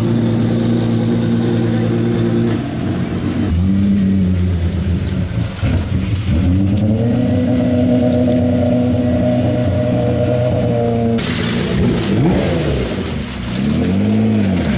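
Exhaust notes of supercars and hypercars, among them an Aston Martin Vulcan's V12, as they drive slowly past one after another on wet tarmac. The engines hold low revs, with the pitch dropping and rising as each car passes and a steady stretch in the middle. A hiss of tyres on the wet surface comes in about two-thirds through, and there is a short rev blip near the end.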